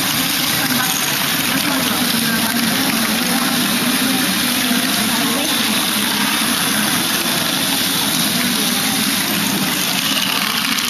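Steady, dense clatter and whir of motorised LEGO Technic Great Ball Contraption modules moving many small plastic balls.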